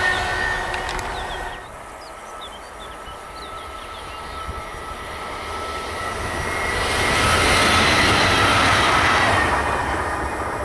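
The rumble of a passing freight train's last wagons dies away in the first second and a half. A red regional electric multiple unit then passes on the far track: its running noise swells to a peak about eight seconds in, with a steady whine, and fades again.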